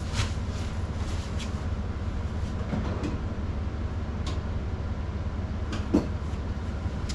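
A few light clicks and taps from wire connectors being pushed onto motorcycle headlight wires by hand, over a steady low hum.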